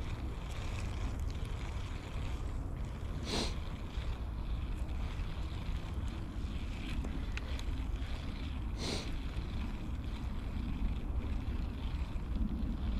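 Wind buffeting the microphone outdoors as a steady low rumble, with two short sharp hissy noises about three and nine seconds in.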